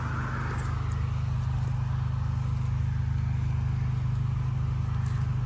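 Pressure washer engine running steadily at a low, even hum, with a hiss that swells at times.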